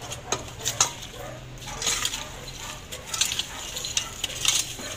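Garden rake scraping and clinking over soil, stones and concrete, in irregular strokes.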